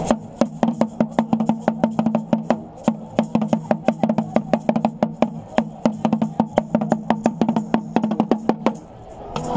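Hand-held drum beaten with a stick in a fast, steady beat of about five strokes a second, stopping shortly before the end.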